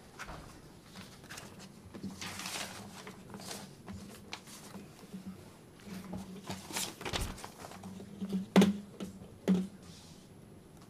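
Handling noises in a small room: scattered clicks, a rustle about two seconds in, and two sharp knocks near the end, the first the louder.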